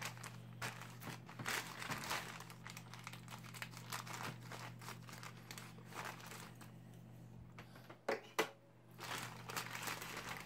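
A plastic mailer bag crinkles as it is handled and cut open with scissors. Two sharp clicks come a little after eight seconds in.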